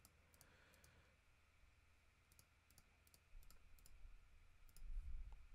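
Faint, scattered computer mouse clicks, about a dozen, as checkboxes are unticked one by one. A low rumble rises under them in the last two seconds.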